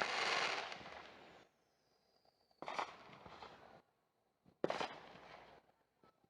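Consumer fireworks going off. A fading crackle at the start gives way to silence, then two sharp bangs about two seconds apart, each followed by a short crackling tail.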